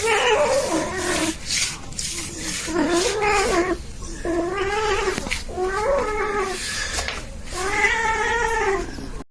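A cat meowing in a string of five or six long, drawn-out calls, each rising and falling in pitch.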